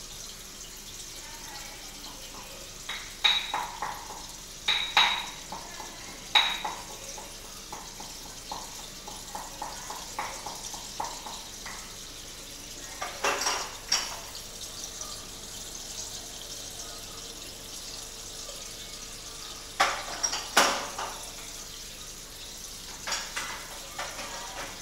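Steady hiss of aquarium aeration, air bubbling up through the tank water, broken every few seconds by sharp clinks and knocks like glass or metal being tapped. A faint steady hum joins about halfway.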